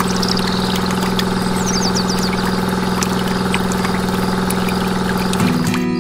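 Small electric motor of a miniature DIY machine running with a steady hum while red liquid pours down a chute into a small tin bucket. The hum gives way to other sound near the end.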